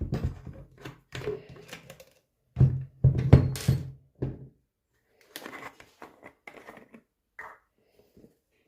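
Irregular knocks, clicks and rattles of hard parts being handled, heaviest in the first second and again around three to four seconds in, then lighter scattered clicks.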